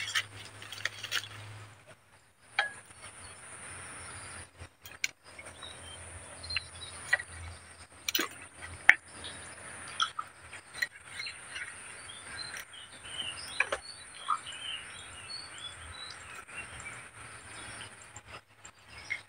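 Outdoor ambience: a steady high-pitched insect drone with scattered bird chirps, and a few sharp clicks.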